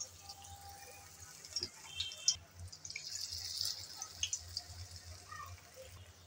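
Chicken shami kabab patties deep-frying in very hot oil: a steady sizzle with scattered crackles and small pops, busiest around the middle.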